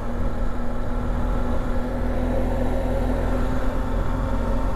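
Adventure motorcycle engine running at a steady low speed while riding, with low wind rumble on the helmet-camera microphone.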